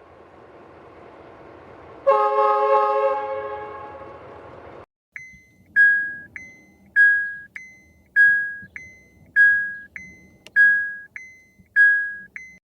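A car horn blasts once for nearly three seconds, fading away, then an electronic two-note beep repeats about once a second: a short higher note followed by a longer lower one.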